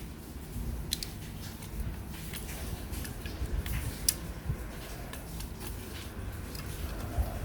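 Plastic housing parts of an Xbox Series X controller being handled and fitted together as the back cover goes on, with a few sharp clicks about a second in, around four seconds in and near the end, over low rubbing and handling noise.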